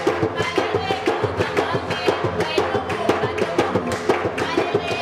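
Live band music played at a sound check, with a quick, steady percussion beat driving it.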